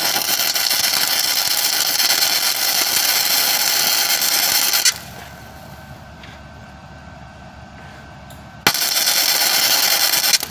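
Flux-core wire-feed welder arcing, laying weld onto a broken bolt stub to build it up for extraction. It crackles steadily for about five seconds, stops, then strikes again for a short second pass near the end.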